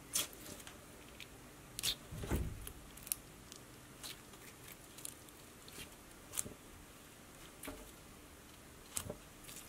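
Planet Putty, a stiff glittery putty, squeezed and kneaded by hand: faint sticky squishes and small clicks every second or so, the strongest about two seconds in.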